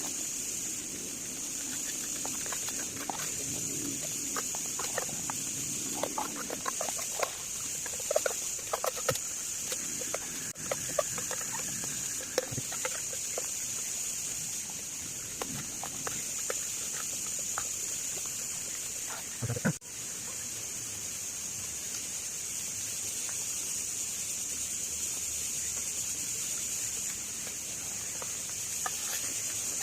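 Steady high-pitched chirring of insects, with scattered small clicks and taps, densest a few seconds in, and one dull thump about twenty seconds in.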